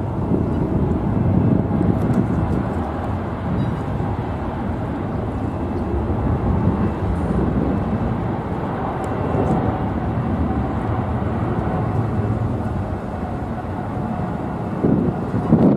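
Boeing 777-300ER's twin GE90-115B turbofan engines at takeoff thrust, a steady low rumble through the takeoff roll and lift-off.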